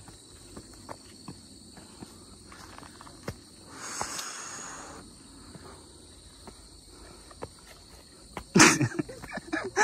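Steady high-pitched insect drone with scattered footsteps on a hiking trail, a short rustle about four seconds in, and a loud burst of sound near the end.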